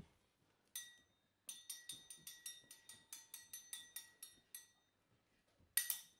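Sword-clash sound effect made by striking metal: one ringing clink, then a quick run of more than a dozen clinks, all ringing at the same pitches. A short, louder burst of noise comes near the end.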